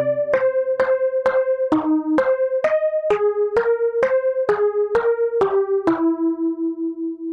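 Background music: a melody of short single notes, about two a second, settling about six seconds in on one long note that pulses as it fades.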